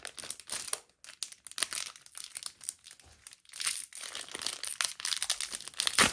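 Foil booster-pack wrapper of a Digimon Card Game pack crinkling and tearing as it is ripped open by hand, in irregular bursts, with the loudest rip near the end.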